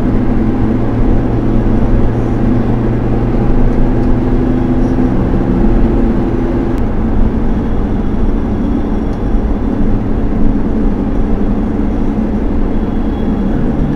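A car driving at highway speed, heard from inside the cabin: steady road and tyre noise with a low engine hum whose pitch shifts about halfway through.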